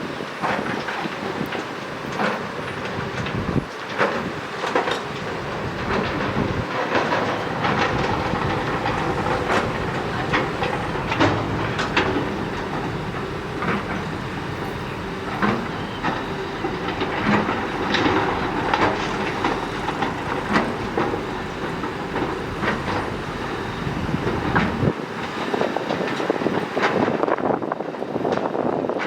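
Heavy excavator working: its diesel engine running steadily under frequent clanks and knocks. The deep rumble drops away about four seconds before the end while the knocks carry on.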